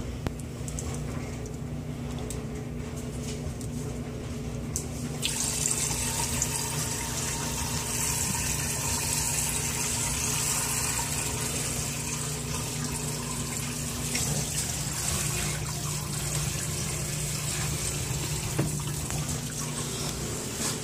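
Water running steadily from a tap: a rushing hiss that grows brighter about five seconds in, over a low steady hum.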